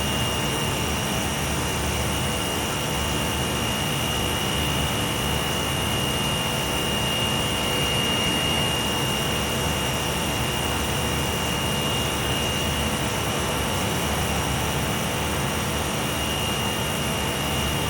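Running chiller's steady machinery drone, with a constant high-pitched tone over it.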